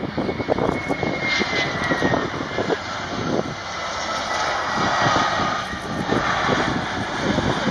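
Airbus A320-212 with CFM56 turbofans landing, its engines running at low approach power with a high whine that slides steadily down in pitch as the jet passes by and touches down.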